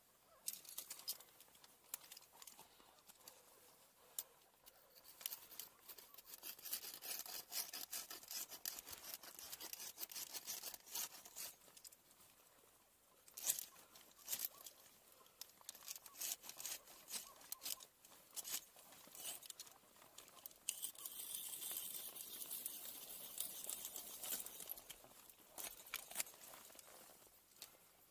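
Ice climbing heard close up: scattered scraping, crunching and small knocks of ice tools and crampons on waterfall ice, with crinkly clothing rustle, and one sharp knock about thirteen seconds in.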